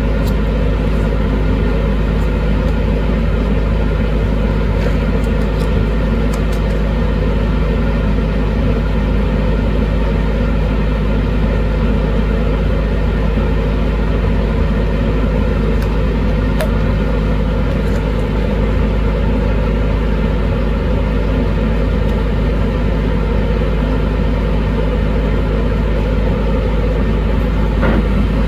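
Laminar flow hood blower running steadily: an even rush of air with a constant low hum. A few faint light clicks come from plastic agar cups being handled.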